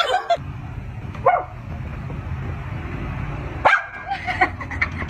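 Pit bull-type dog barking in short barks: one at the start, a single bark about a second in, and a quick cluster of barks near the end, over steady background noise.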